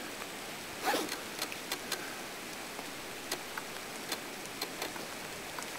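Steady hiss of rain falling in the woods, with scattered sharp ticks of drops landing close by: a quick cluster about a second in, then single ticks every second or so.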